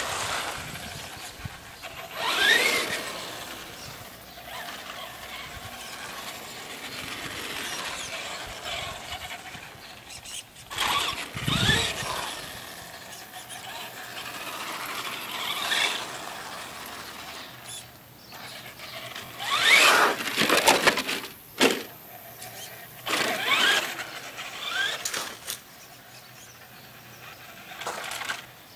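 Traxxas Slash VXL 4x4 RC truck's brushless electric motor whining up in pitch in several bursts of acceleration, with its tyres scrubbing on asphalt.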